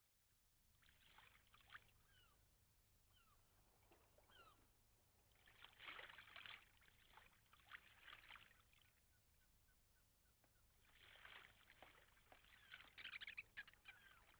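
Very faint harbour ambience: intermittent water sloshing in several short stretches, with a few brief bird chirps early on.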